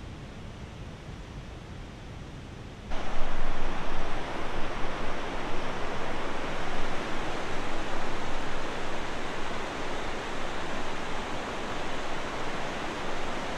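Steady rush of river rapids tumbling through a rocky gorge, fainter for the first three seconds and then suddenly much louder.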